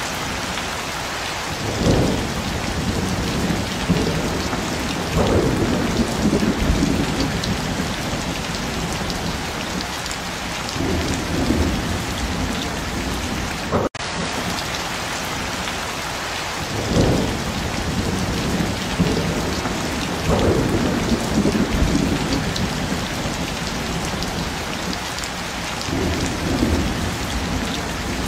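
Steady rain falling, with low rolls of thunder that come three times in about ten seconds. After a brief dropout about halfway through, the same stretch of rain and thunder repeats.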